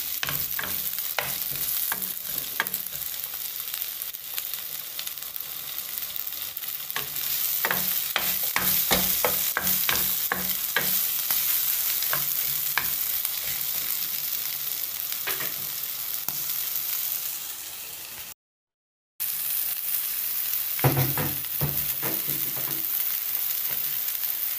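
Chopped green bell pepper sizzling in oil in a frying pan while a wooden spoon stirs and scrapes it, with a steady hiss and many short clicks of the spoon against the pan. The sound cuts out for under a second near the end, and after it garlic and green onion are sautéing with the pepper.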